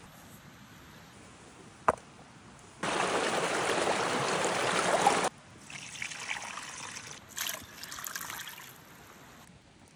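A sharp knock about two seconds in, then a fast creek rushing loudly for a couple of seconds before cutting off abruptly. Water is then poured from a wooden bowl into a steel bowl, splashing and trickling over the meat.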